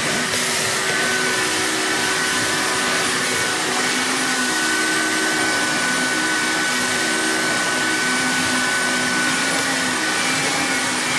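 Wet-extraction carpet cleaner's suction motor running steadily as its hose hand tool is drawn over damp carpet, sucking the water back out, with a thin steady whine over the rush of air.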